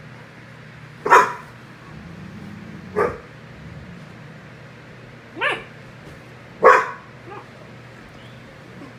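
A dog giving four short, sharp barks at uneven intervals, with a faint fifth yip near the end, in play among dogs roughing about. A steady low hum runs underneath.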